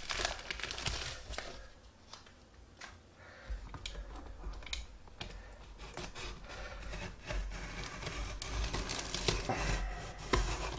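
Snap-off utility knife slicing through packing tape on a cardboard box: irregular scratchy cuts and clicks, with the box and plastic pouch rustling and knocking under the hands.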